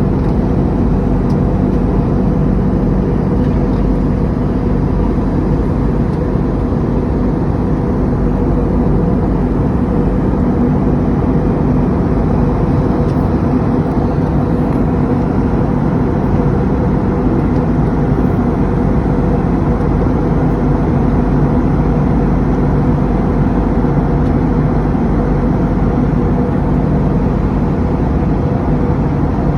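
Steady engine and airflow noise inside an airliner cabin in flight: a loud, unchanging roar with a constant low hum running under it.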